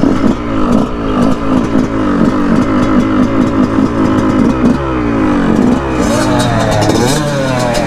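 Dirt bike engine accelerating hard, its pitch climbing in quick repeated rises as it shifts up through the gears. Near the end the engine note changes to slower rising and falling sweeps.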